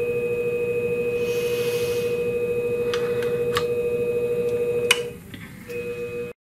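Scimech Flathone shear-sharpening machine running with a steady hum, with light ticks along the way. About five seconds in there is a sharp click and the hum drops away, comes back briefly, and then the sound cuts off abruptly.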